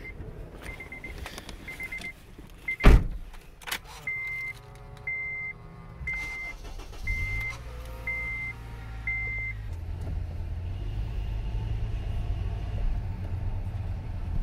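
Honda Odyssey's warning chime beeping over and over, quick at first, then slower. The driver's door thuds shut about three seconds in. About four seconds in the starter whirs and the 2.4-litre four-cylinder engine catches, settling into a low, steady running that grows as the minivan moves off.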